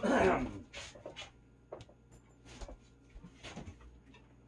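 A person clearing their throat, which ends about half a second in, followed by a few faint scattered knocks and clicks of household handling.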